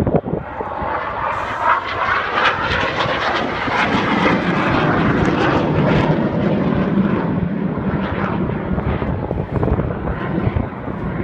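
Hawker jet aircraft's engine noise as it flies by in a display pass. It builds over the first few seconds with a rising whine, holds, then eases off a little near the end.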